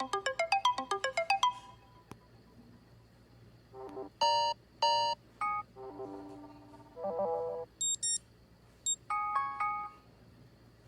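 Phone alarm tones playing through the phone's speaker as they are previewed. A quick run of plucked, bell-like notes, about eight a second, stops about a second and a half in. From about four seconds in come several short snatches of different tones, each cut off after a fraction of a second.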